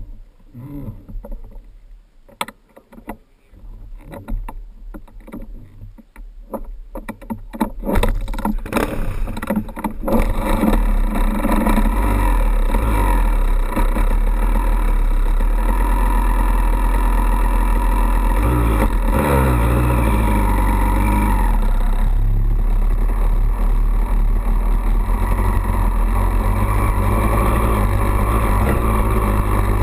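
2002 Honda CR250 two-stroke dirt bike engine. After several seconds of irregular knocking, the engine starts about eight seconds in and then runs loud and steady. Its revs rise and fall around the middle, and the bike is being ridden off by the end.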